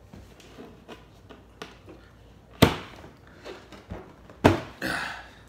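Two sharp knocks about two seconds apart amid faint handling clicks, the second followed by a short breathy sound.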